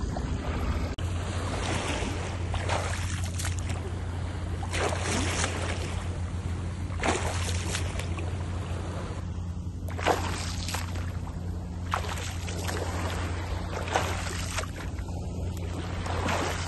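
Small waves lapping and washing onto the shore in irregular surges every second or two, over a steady low rumble.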